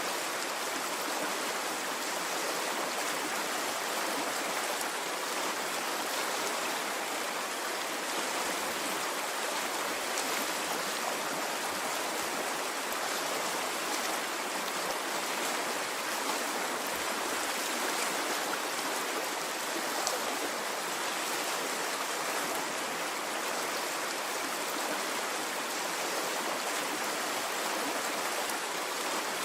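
Stream of water flowing steadily, an even rushing with no pauses or surges.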